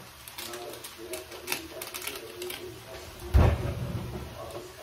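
Light clicks and rustling from Maggi masala taste-maker sachets being emptied into a pan of vegetables. There is a single dull thud about three and a half seconds in.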